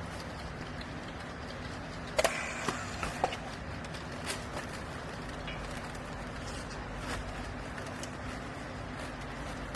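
Vertical hydraulic baler's power unit running with a steady hum, with a few sharp knocks about two to four seconds in.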